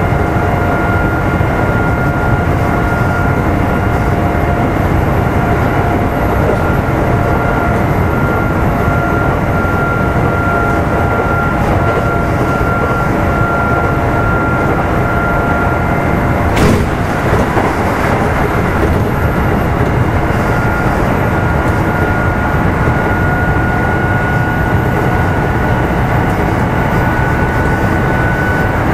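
Kintetsu 1810 series electric motor car running at speed, heard from inside the car: a steady traction motor and gear whine over wheel and track rumble. A single sharp knock comes about two-thirds of the way through, after which the whine fades briefly and then returns.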